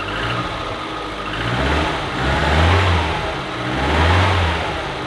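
Holden Gemini's four-cylinder engine revved twice by hand in the engine bay, each rev rising and falling back to idle. It runs cleanly after a dose of fresh fuel: it sounds good.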